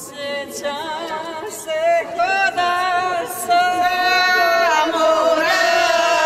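Music: layered singing voices holding long, wavering notes, with no beat.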